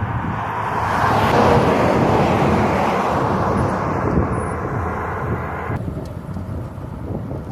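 Road traffic: a passing vehicle's noise swells over the first couple of seconds and then slowly fades.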